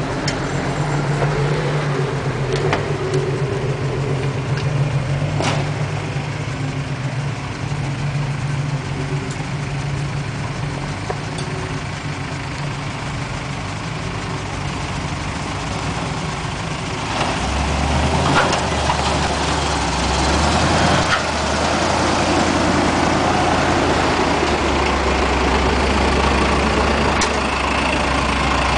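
Jeep engines idling and running at low speed on a rocky off-road trail, a steady hum. About two-thirds of the way in, a deeper, louder engine note comes in as a Jeep crawls up close, with a few sharp knocks over the rocks.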